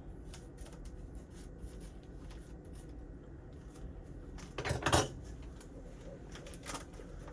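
Light kitchen handling: faint scattered clicks and taps, with a louder double knock about five seconds in, as a seasoning container is handled over the chicken.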